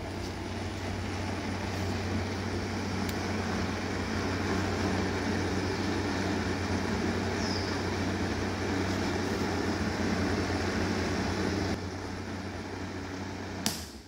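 Small 7.2-volt DC motor spinning a plastic fan inside a cardboard housing, a steady buzzing hum; near the end a click and the hum drops away as the fan is switched off.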